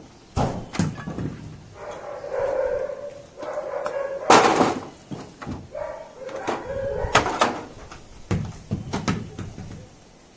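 Knocks and clatters of storm debris, broken corrugated roofing sheets and bricks, being handled and dropped. There are several sharp impacts, the loudest about four seconds in.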